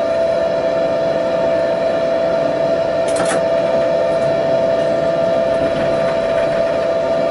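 Tatra T6 tram running at about 40 km/h, heard from the driver's cab: a steady whine over the rumble of wheels on rails, with a brief hiss about three seconds in.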